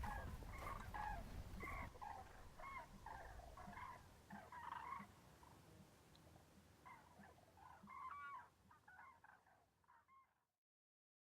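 Faint chirping of small birds, short repeated calls, with a low rumble in the first couple of seconds; the sound fades out near the end.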